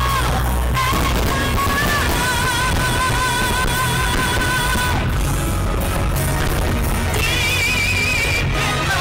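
Song with a singer holding long, wavering notes over a steady bass line.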